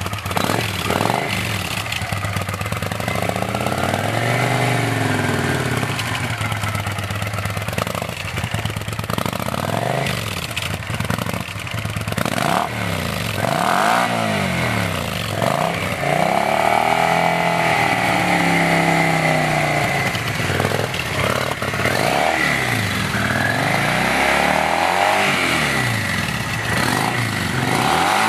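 Stock Kawasaki Vulcan 800 V-twin running through its original baffled exhaust, revved up and down repeatedly so the engine note rises and falls again and again.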